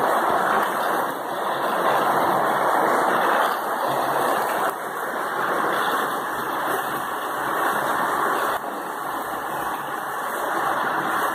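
Battery-powered toy train's small electric motor running with a steady whir as the locomotive goes round its plastic track.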